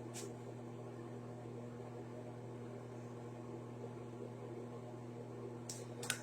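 Steady low electrical hum under faint hiss, with a brief soft rustle just after the start and a couple more near the end.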